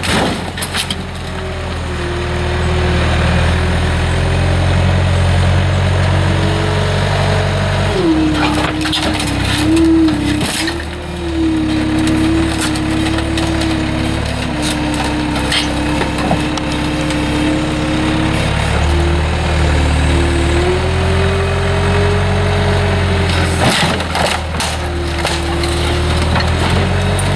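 Chevy pickup's 5.3-litre LS V8 running steadily under load as the truck is driven hard, its note wavering up and down, with a few sharp knocks and rattles.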